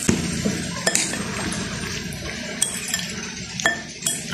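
A metal fork and a plastic spoon stirring a mayonnaise-dressed salad in a bowl, with a few sharp clinks of the utensils.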